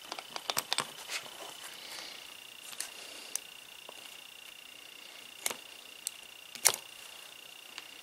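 Scattered clicks and light taps of small hand tools and carburetor parts being handled, with a quick cluster in the first second and the sharpest click about two-thirds of the way in, over a steady high-pitched tone.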